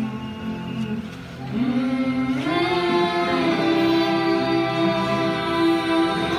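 A song: a singer's voice over musical accompaniment, rising about two and a half seconds in to hold one long note.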